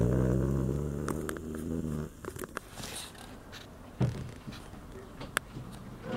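A low, steady droning hum that stops about two seconds in, followed by a few scattered light clicks and a soft knock.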